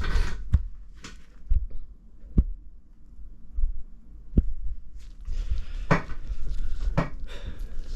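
Handling noise of hands working on a bike frame and its parts: scattered light knocks and clicks, the sharpest just after two seconds and just after four, with rustling in the second half.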